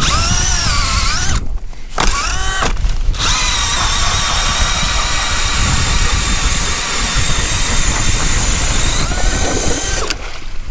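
Cordless drill turning an ice auger as it bores a fishing hole through lake ice. It starts and stops twice in the first few seconds, then runs steadily. Its pitch shifts shortly before it stops near the end, as the auger breaks through and slush wells up around it.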